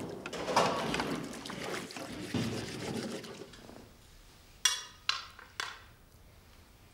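Liquid pouring for a few seconds, then three short ringing clinks of tableware about half a second apart.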